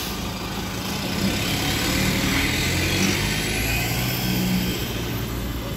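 Steady low hum from a ZiU-682G trolleybus standing with its doors open, mixed with city traffic noise; it swells a little in the middle.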